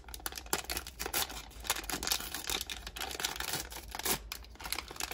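Small plastic surprise packets of a Barbie Color Reveal set being torn open and crinkled by hand: a string of irregular crackles and clicks.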